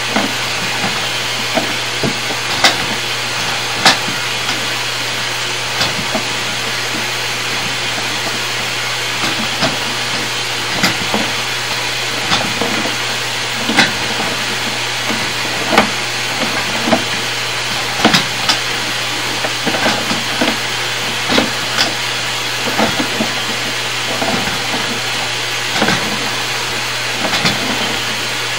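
Sewer inspection camera being pushed through a sewer pipe: a steady hiss and low electrical hum with irregular knocks and scrapes, one every second or two, as the camera head and push cable bump along the inside of the pipe.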